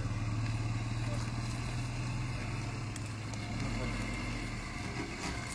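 Small van's engine idling, a steady low hum that eases somewhat past the middle.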